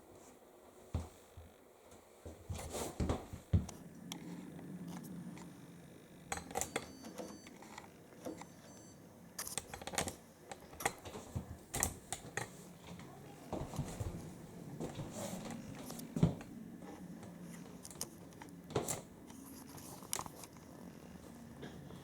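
Washing machine controls being set: a run of irregular clicks and knocks from the programme dial and buttons, with a few short high beeps about a third of the way in, over a low steady hum.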